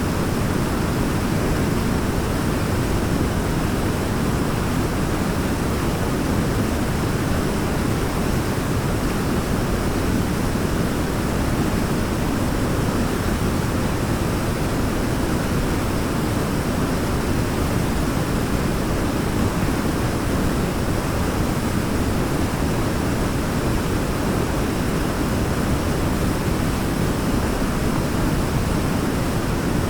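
Waterfall: a steady, unbroken rush of falling water, deep and even, with no changes or separate splashes.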